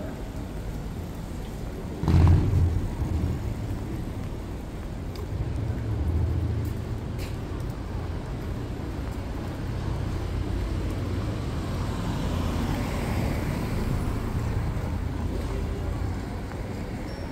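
City street traffic: a steady low rumble of passing vehicles, with a louder surge about two seconds in.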